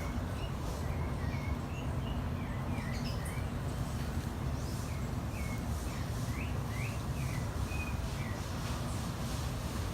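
Small birds chirping in scattered runs of short high notes, over a steady low outdoor rumble.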